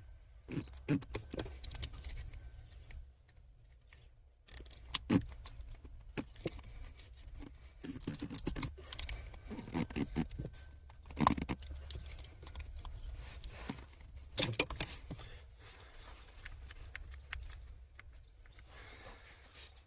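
Scattered plastic clicks, knocks and rustling of hands working a Jeep Grand Cherokee's brake light switch free of its mount under the dashboard, pressing in its retaining tabs, over a steady low rumble.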